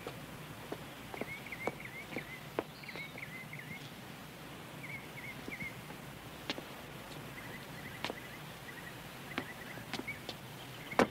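Footsteps and small scattered knocks and scuffs as a man walks to a gate and climbs over it, with a louder cluster of knocks near the end. Behind them a small bird chirps in short twittering phrases.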